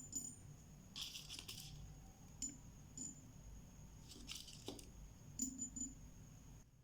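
Small stainless steel beads clicking and rattling as they are handled: a few sharp light clicks and two brief hissy rattles. A faint steady high whine lies underneath.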